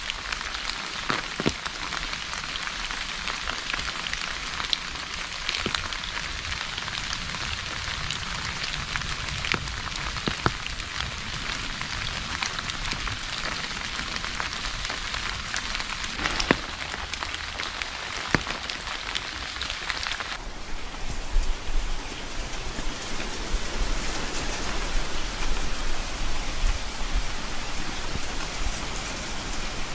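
Steady rain falling on a hard surface, with scattered individual drops ticking through it. About two-thirds of the way in it changes to a denser, fuller rain with more low rumble.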